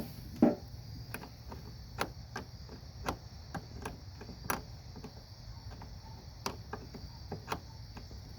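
Irregular sharp clicks, about one every half second to a second, of a 1/2 inch wrench working the nut on a car's positive battery cable clamp, over a steady high chirring of crickets.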